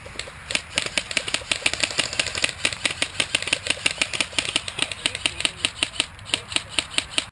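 Airsoft guns firing: a fast, uneven run of sharp clicking shots, several a second.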